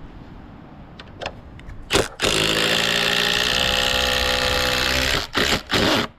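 A cordless power driver driving a long screw into a wooden beam. It runs for about three seconds with a pitch that sags slightly as the screw bites, then gives a few short trigger bursts near the end to seat it.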